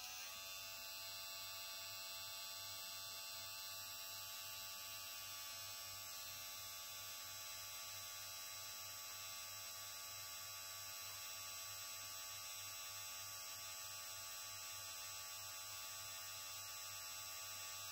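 OVLUX LX 9905 cordless hair clipper running steadily: a faint, even motor hum with a regular low pulsing, measured at about 47 decibels.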